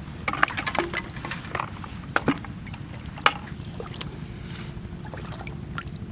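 Shallow water splashing and sloshing, with irregular sharp splashes and clicks.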